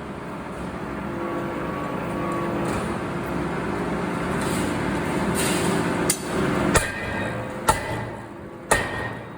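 Steady factory machinery noise that builds, then four sharp metal-on-metal blows with short ringing in the last few seconds, typical of hammer strikes in a steel forge.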